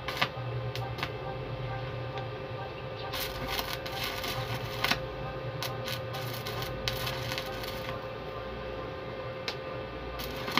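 Stick (arc) welding on a steel chair frame: the electrode's arc crackling and sputtering in irregular bursts, heaviest from about three to seven and a half seconds in, over a steady low hum.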